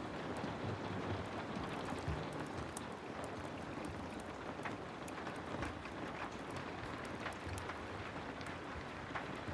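Heavy rain falling steadily, with scattered sharp pops and crackles from a wood fire in a fireplace.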